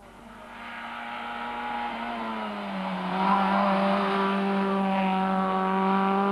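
Rally car engine running hard as the car approaches, getting steadily louder, its note dropping once about two and a half seconds in.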